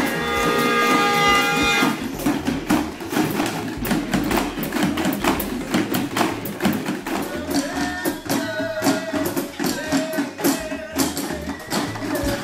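Group percussion: many hand-held drums struck with drumsticks, with a cajon, playing a fast, dense rhythm together. Held tones sound over the first two seconds before the strikes take over.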